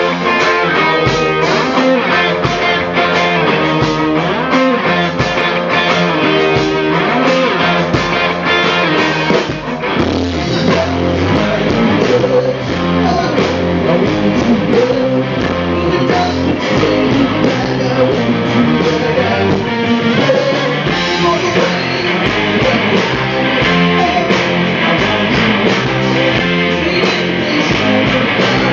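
Rock band playing live at a sound check: guitar over a drum kit, continuous and loud.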